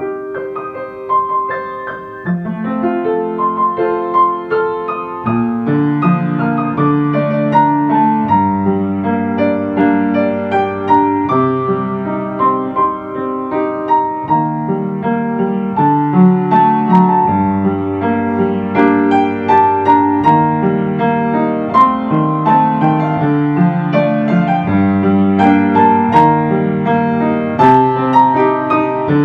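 Calm ambient piano music: a slow melody over held low notes, growing fuller about two seconds in.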